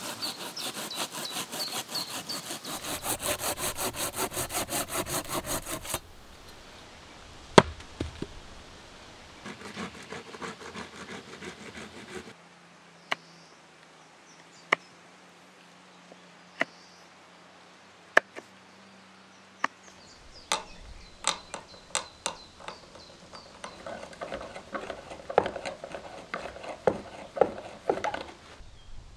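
Hand saw cutting through a log in fast, even strokes for the first several seconds. Then sharp single knocks a second or two apart as a knife is worked into a log. Near the end, a drill bit boring into a wooden frame with rapid rasping.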